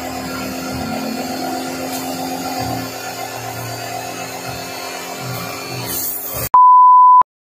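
Pressure washer running, its motor holding a steady hum under the hiss of the water jet spraying the concrete floor. About six and a half seconds in, the sound cuts off abruptly and a loud, pure electronic beep sounds for under a second, then silence.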